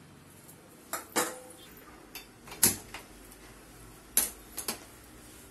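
A handful of sharp clinks and knocks of steel kitchenware being handled and set down on the counter, about six spread through the few seconds, the loudest a little over two and a half seconds in.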